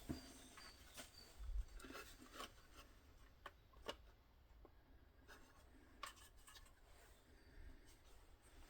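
Faint handling noises of the brake-light housing being worked on: scattered light clicks and rubbing, with a few sharper ticks about a second, four seconds and six seconds in.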